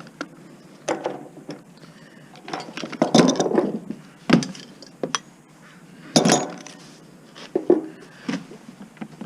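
Metal appliance parts and hand tools clinking and clanking against each other as a motor is taken apart, in irregular knocks, with a busy cluster about three seconds in and a sharp knock about six seconds in.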